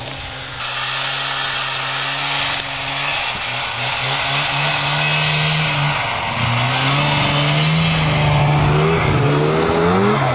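1995 Polaris Indy 500 snowmobile's two-stroke engine revving, its pitch rising and falling as it tows a rider on a rope. It gets louder about a second in.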